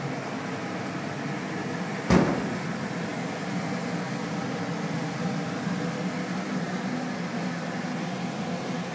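A wooden kitchen cabinet door knocking shut once, sharply, about two seconds in, over a steady low hum.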